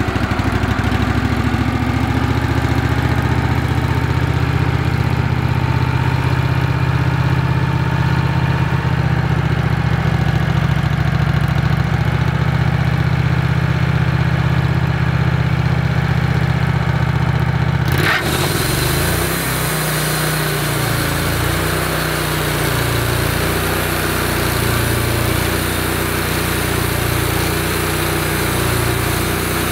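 Wood-Mizer LX150 portable band sawmill running, its engine working steadily as the band blade saws through a red pine log. A little over halfway through the sound changes abruptly to a lighter, more even engine running.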